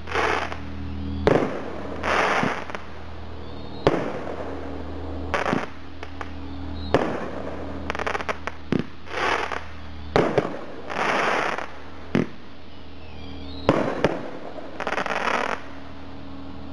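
T-Sky '4th of July' 18-shot fireworks cake firing: a sharp report every one to two seconds, each followed by about a second of crackling as the bursts break into crackle.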